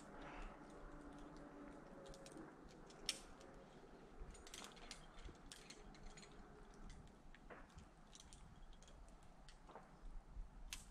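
Near silence, with scattered faint clicks and ticks and one sharper click about three seconds in.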